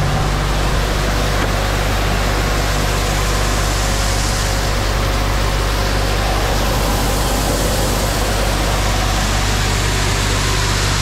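Grain-handling machinery running very loud and steady as a truck unloads corn into a grain pit: a constant low hum under an even rushing hiss, from the auger carrying the corn up into the grain bin.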